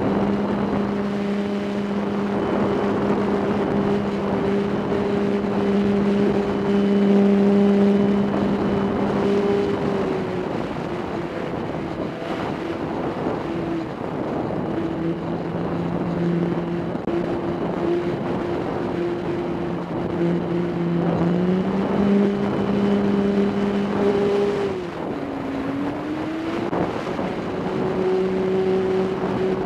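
RC plane's motor and propeller running in flight, heard from the plane itself: a steady hum whose pitch drops about ten seconds in, comes back up around twenty-one seconds, and dips briefly a few seconds later as the throttle is changed. Wind rushes over the microphone throughout.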